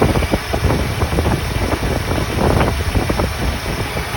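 Ford 302 Windsor V8 idling in the F-250's engine bay, with irregular close knocks and rattles over the engine sound.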